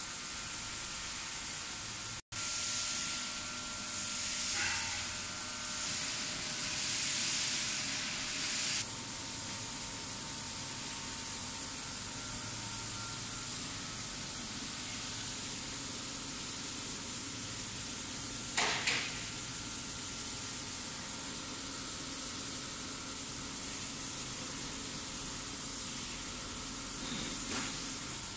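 Steady hiss with a few faint steady hum tones: the cooling fans of a powered-up enclosed laser marking machine running. The hiss grows louder from about two to nine seconds in, and one brief rush of noise comes about two-thirds of the way through.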